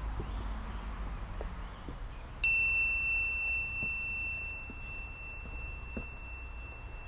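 A single bright metallic ding about two and a half seconds in, ringing on and fading slowly over several seconds, over a steady low background rumble.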